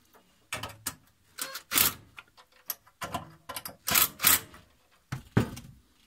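Irregular knocks, clicks and clatter of a sheet-steel power supply cabinet as it is handled and shifted on loose wall screws, some knocks with a brief metallic ring.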